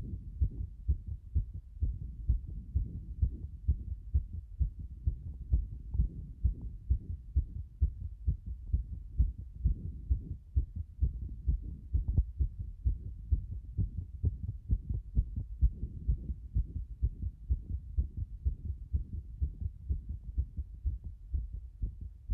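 A fast heartbeat: a quick, regular run of low thumps that carries on without a break.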